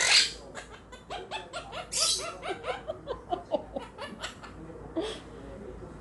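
Quaker parrot chattering: a fast run of short chirps and squawks that bend up and down in pitch, with a harsh burst at the start and another about two seconds in.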